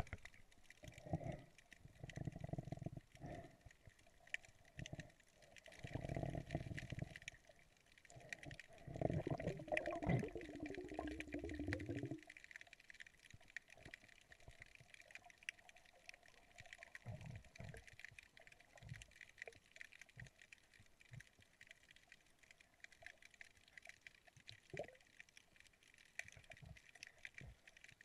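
Muffled underwater sound through the camera's housing: a few bursts of bubbling, gurgling noise in the first twelve seconds, then only faint scattered clicks.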